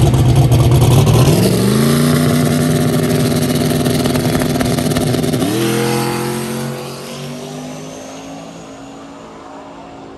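Turbocharged drag car engine on the starting line: it is held at low revs, brought up to a higher steady rpm about a second in, then launches about five seconds in. Its pitch climbs steadily as the car accelerates away and fades with distance, with a thin high whine rising over it.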